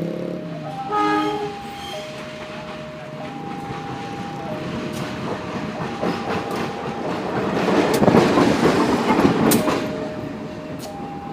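A diesel train sounds a short horn blast about a second in, then passes with rising rumble and wheel clatter that is loudest near the end before easing off. A steady electronic two-tone warning signal alternates high and low throughout.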